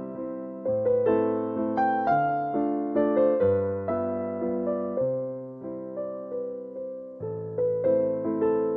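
Soft, slow melody played on an electric piano, notes struck a few times a second and left to ring out and fade.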